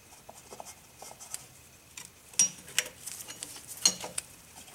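Screwdriver tip clicking and scraping on a rear drum-brake wheel cylinder as its dust cap is pried off. The small light clicks are scattered throughout, with two sharper ones about halfway through and near the end.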